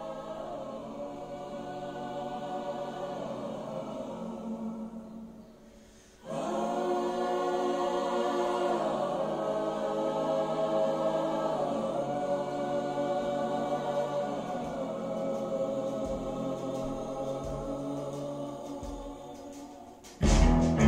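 A wordless choir sings long sustained chords in harmony. One chord fades out about five seconds in, and a fuller chord comes in a second later and is held until it fades. Just before the end a loud band with drums comes in suddenly.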